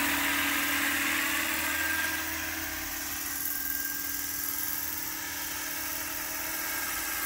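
Large radio-controlled scale Bell 429 helicopter flying slowly, its symmetrical-airfoil rotor blades giving a steady hum under a high, drill-like whine from the drive. The sound eases a little about two seconds in as the helicopter moves farther away.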